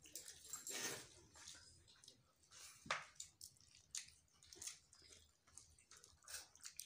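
Faint sounds of eating by hand: fingers squishing rice and small-fish curry in steel dishes, with soft chewing and one sharper tap about three seconds in.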